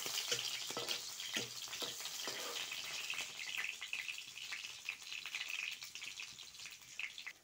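Onion slices sizzling in hot oil in an iron wok: a steady hiss with many small crackles and pops, easing off toward the end and cutting off suddenly.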